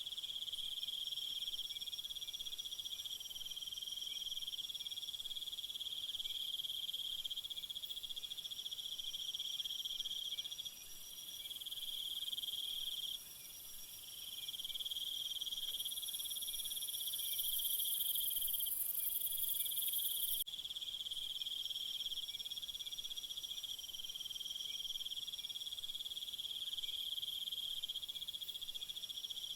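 A chorus of crickets trilling steadily at a high pitch. Its level shifts abruptly a few times, the sharpest change about two-thirds of the way through.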